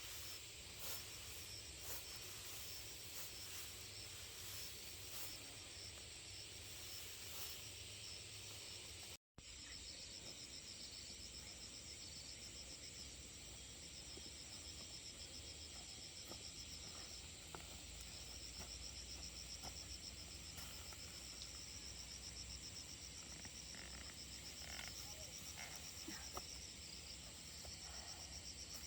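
Faint forest ambience of insects chirring: a steady high-pitched hum with a rapid pulsing trill over it. The sound breaks off for an instant about nine seconds in.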